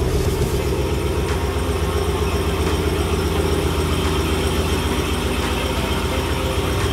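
Ram 1500 pickup truck's engine running at low speed as the truck backs out of a garage: a steady low rumble.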